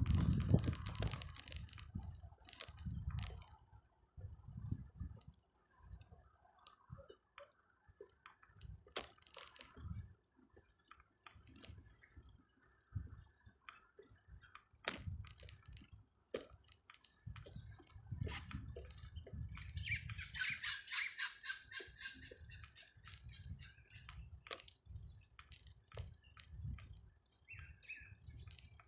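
Bicycle rolling over a cracked concrete path: scattered rattling clicks from the bike, uneven low wind buffeting on the microphone, and short bird chirps now and then, thickest about two-thirds of the way through.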